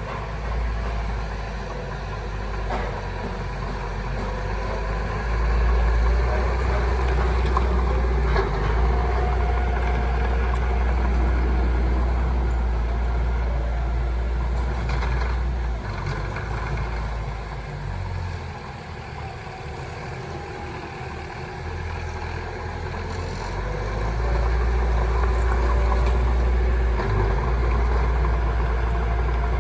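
Heavy diesel engines of earthmoving machinery running at work, swelling and easing in loudness. They quieten for a few seconds past the middle, then pick up again.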